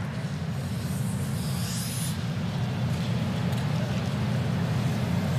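Arena crowd applauding after a skating performance, heard as a steady din that swells slightly.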